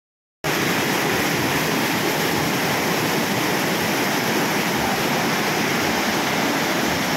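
Swift water of the BRB canal rushing steadily, the sound of a very strong, fast current. It starts abruptly about half a second in.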